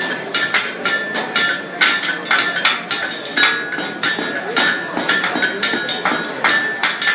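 Blacksmith's hammer striking hot steel on an anvil in quick, uneven blows, about three a second, each with a clear metallic ring from the anvil.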